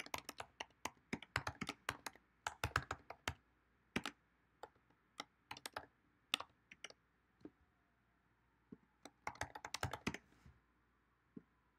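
Typing on a computer keyboard in bursts. A quick run of keystrokes over the first few seconds is followed by scattered single keys, then a second short run about nine seconds in.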